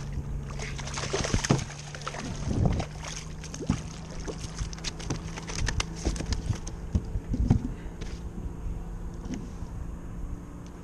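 A hooked fish splashing at the surface beside a plastic kayak. It is then lifted aboard and flops, making a run of sharp taps and knocks against the hull.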